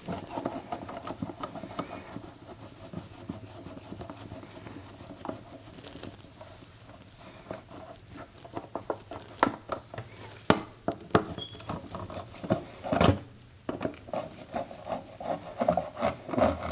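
Hands and a screwdriver working an old electrical receptacle out of its wall box: scraping and rubbing, then a quick run of sharp clicks and knocks in the second half, with one louder knock.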